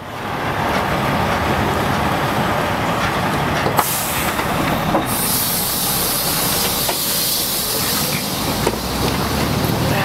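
Livestock transport tractor-trailer running close by, a steady heavy-vehicle engine and road noise, with a sharp hiss coming in about four seconds in.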